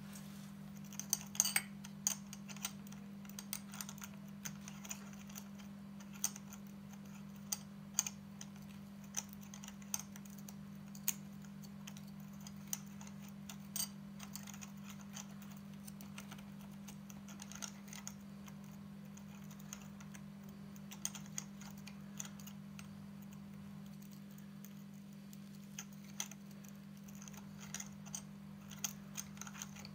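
Scattered light clicks and taps of small metal parts being handled and fitted onto a bicycle hub motor's sprocket cassette and axle, over a steady low hum.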